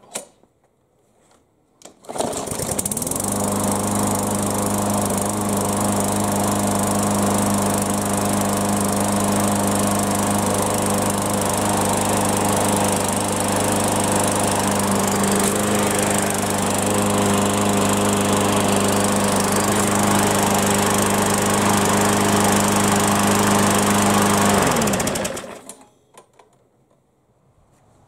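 Yard Machines push mower's small engine starting on the pull cord after priming, catching about two seconds in and running steadily for over twenty seconds before shutting off and winding down. It is a mower that would not start, now running after repair.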